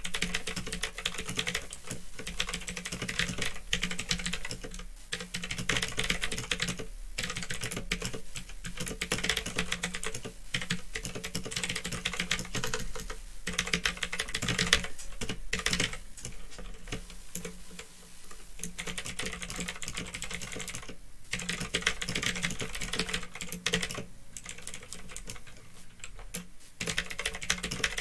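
Continuous fast typing on a Phantom Tecware 87 mechanical keyboard with clicky Otemu blue switches: a dense stream of key clicks broken by a few brief pauses, over a steady low hum.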